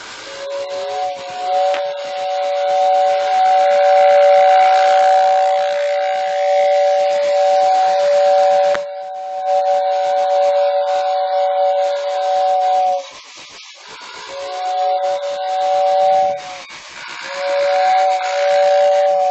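Lionel toy train's electric whistle sounding a two-note chord: one long blast of about twelve seconds, then two short blasts near the end, over a steady hiss.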